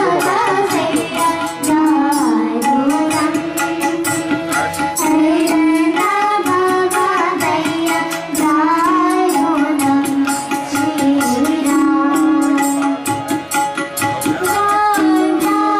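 Bhajan sung live with harmonium and tabla accompaniment: a singing voice bends and glides over the harmonium's held reed tones while the tabla keeps an even beat.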